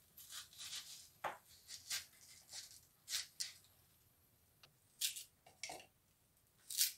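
Knife cutting and scraping an onion on a cutting board: a run of short, sharp rustling strokes with a knock about a second in. Near the end, onion chunks dropped into the plastic bowl of a mini chopper.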